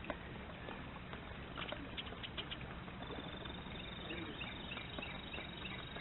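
Light tapping clicks of a red-headed woodpecker pecking at a caged suet cake, then a bird in the background giving a run of short falling chirps, about four a second, over a steady high note and outdoor hiss.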